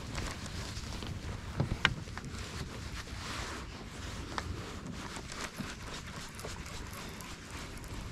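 Wind buffeting the microphone as a steady low rumble and hiss, with a few sharp knocks, the loudest pair close together about two seconds in.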